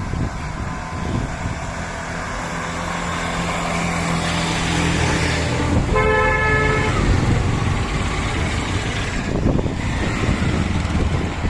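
Motor vehicle engines running with a low rumble that grows louder, and a vehicle horn sounding once for about a second midway.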